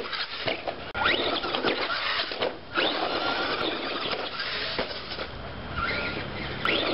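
Traxxas Rustler RC truck's motor whining up in quick rising revs as its wheels spin and scrabble on dry grass and dirt at the foot of a tree trunk.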